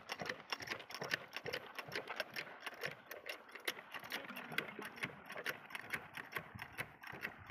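A machine running with a fast, uneven clicking rattle.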